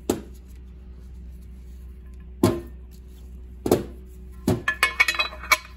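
Steel oil pump gears and parts knocking against an aluminium engine timing cover as they are handled and set in place. There are four separate knocks, then a quick run of light metallic clinks near the end, over a steady low hum.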